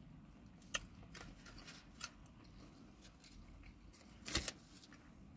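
Quiet eating sounds: sharp wet clicks and smacks of the mouth while chewing and licking fingers. There are about three, the loudest a quick double click near the end, over a faint low hum.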